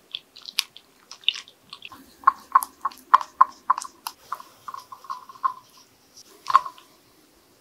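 Silicone spatula stirring chocolate chips, cream and cream cheese as they melt in a glass bowl set in hot water, with wet stirring sounds and quick ringing taps of spatula and glass. The taps come about three a second from two seconds in, and there is one louder knock near the end.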